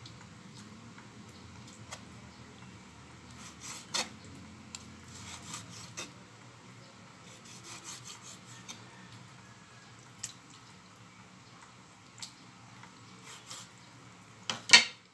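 Kitchen knife cutting raw chicken on a wooden chopping board: scattered taps and scrapes of the blade against the board, with wet handling of the meat, and a louder double knock near the end.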